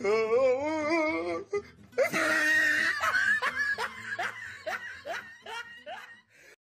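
Laughter sound effect: a wavering high giggle, then a run of short falling 'ha' laughs that trails off near the end, over soft background music.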